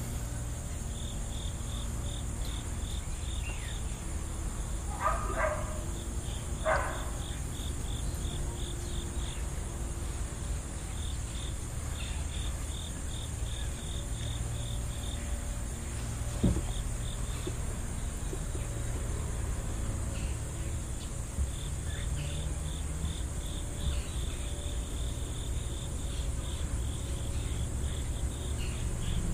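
Insects chirping in runs of quick, evenly spaced high pulses that stop and start again several times, over a steady low rumble. Two short sharp sounds come about five and seven seconds in, and a single sharp knock about sixteen seconds in.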